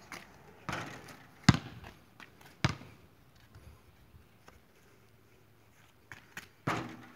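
A basketball bouncing on a concrete court: a few sharp bounces about a second apart in the first three seconds, then a couple of lighter thuds and another bounce near the end.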